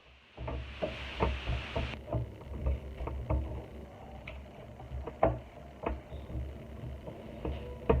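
Kitchen food-preparation handling sounds: irregular light knocks and clicks of utensils and bowls, with a short hiss in the first couple of seconds.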